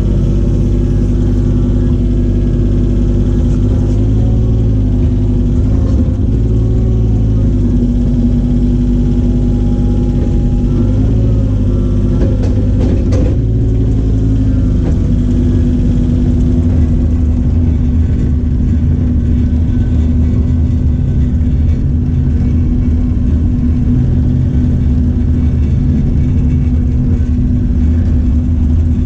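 Cat mini excavator's diesel engine running steadily at working speed, a low, even drone whose pitch wavers briefly a few times.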